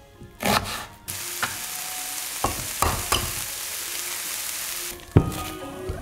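Diced onion sizzling in a hot frying pan. The sizzle starts suddenly about a second in, after a couple of knife strokes on a wooden cutting board. A few light taps come through the sizzle, and there is one sharp knock near the end.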